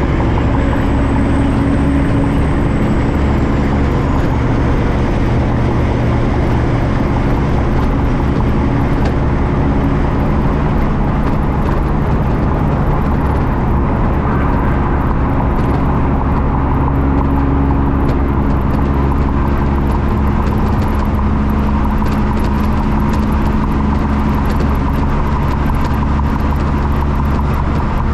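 A motor vehicle running steadily: a continuous engine hum whose pitch shifts slowly, mixed with road noise.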